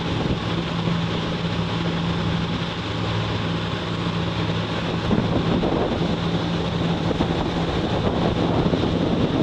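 Pontoon boat's engine running steadily at cruising speed, a low even hum under heavy wind buffeting the microphone and water rushing past the hull.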